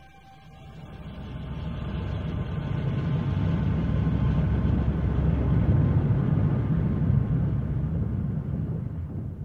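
Scuba diver's exhaled air bubbles rushing up past the underwater camera housing: a rumbling, bubbling noise that swells over the first few seconds, holds, and fades near the end.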